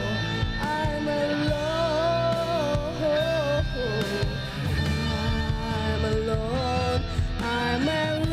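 Instrumental passage of a rock song: a sliding, bending lead melody over a steady guitar and bass backing.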